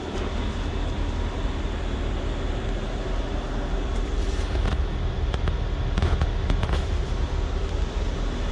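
Steady low mechanical rumble with a faint hum, and a few light clicks in the middle.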